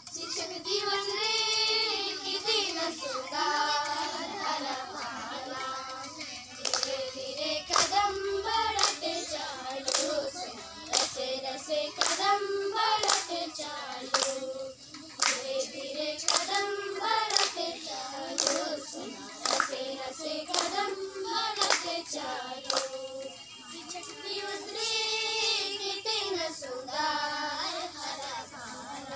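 Girls singing a song in chorus while clapping their hands in time, the claps thickest through the middle.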